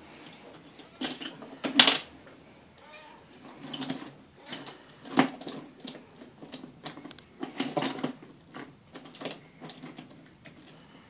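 Wooden toy trains and toy vehicles clacking and knocking on a wooden train track and tabletop as a small child pushes them, in irregular clicks and knocks, the sharpest near 2 s and 5 s in.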